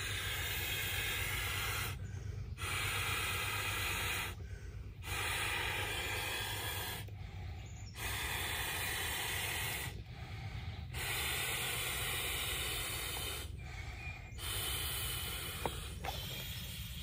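A person blowing up an inflatable camp pillow by mouth: six long, airy exhalations of about two seconds each, with short pauses between them for breath.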